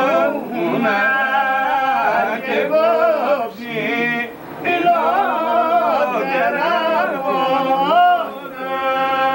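Men's voices singing unaccompanied, with long held notes that waver up and down and a few short pauses.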